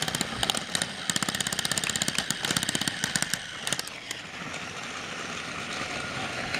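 Battery-powered TrackMaster toy engine running on plastic track: rapid clicking at about ten clicks a second over a motor whir. The clicking stops about four seconds in, leaving a steadier whir.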